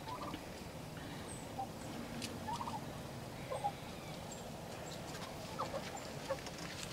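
Chickens and turkeys giving scattered short, soft calls, with a few faint clicks between them.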